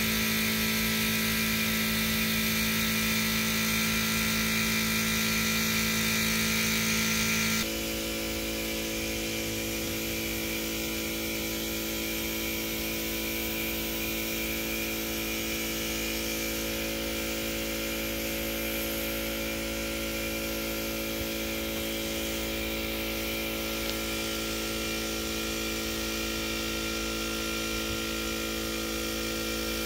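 Air compressor running with a steady hum under the hiss of a gravity-feed spray gun spraying paint. About eight seconds in, the hum abruptly gets slightly quieter and shifts to a higher set of tones.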